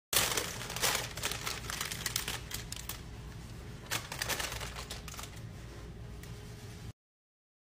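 Baking parchment crackling and crinkling as it is peeled down from the sides of a marble loaf cake: a run of sharp crackles, loudest at the start and again about four seconds in, stopping abruptly near the end.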